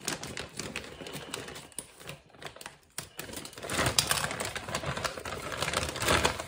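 Scissors snipping through the top of a plastic frozen-food bag while the packaging crinkles and rustles in the hand. The crackling grows louder and busier about halfway through.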